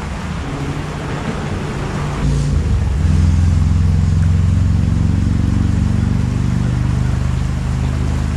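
Road traffic: a motor vehicle's engine droning low and steady, growing louder about two seconds in and staying loud.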